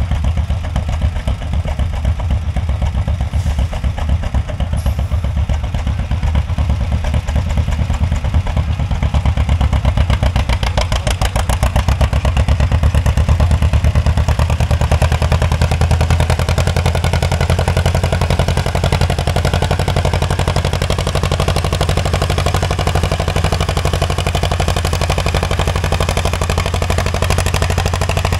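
Vintage farm tractor engine working hard under load as it pulls a weight-transfer sled, a loud, steady, rapid exhaust pulsing that swells about ten seconds in and then holds.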